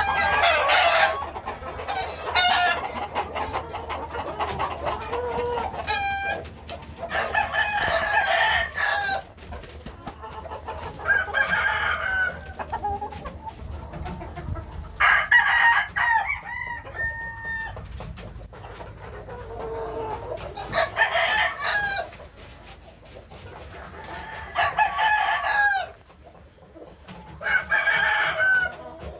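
Black gamefowl roosters crowing, a crow every few seconds, about seven in all.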